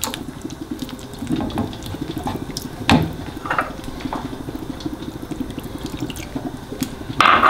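Wooden spoon stirring chicken livers in a thick cream sauce in a cast iron frying pan, a steady rapid scraping and squelching, with one sharp knock of the spoon against the pan about three seconds in. Near the end liqueur is poured from a cup into the sauce, a short louder splash.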